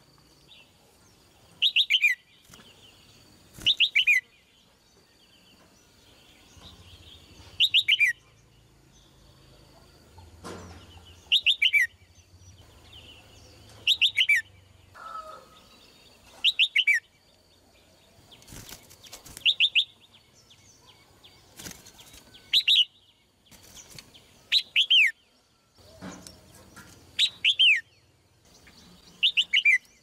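Red-whiskered bulbul calling: short phrases of a few quick notes that fall in pitch, repeated every two to three seconds.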